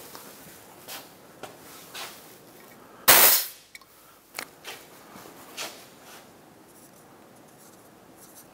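Compression tester's pressure-relief valve venting the held reading, a short, sharp hiss of air about three seconds in. Light clicks and handling of the gauge and hose come before and after it.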